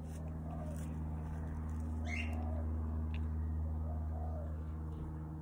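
A dove or pigeon cooing several times, with a brief higher chirp from a small bird about two seconds in, over a steady low hum.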